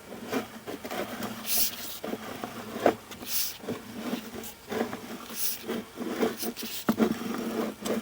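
Sewer inspection camera's push cable being pulled back through a clay sewer line: irregular clicks and knocks, with short hissing swishes about every two seconds.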